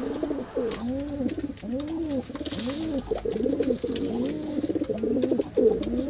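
Domestic pigeons cooing: a run of repeated rising-and-falling coos, about two a second.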